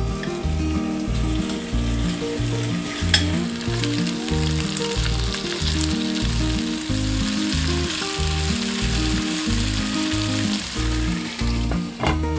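Chicken thigh pieces sizzling and frying in a pan, a steady hiss that swells in the middle, with a sharp utensil click about three seconds in and another near the end. Background music with a steady bass line plays throughout.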